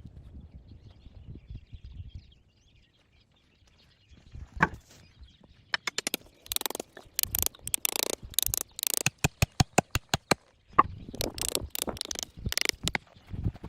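Dry sticks and forest litter being handled and broken: a knock, then from about six seconds in a rapid, irregular run of sharp snaps and cracks with rustling between them.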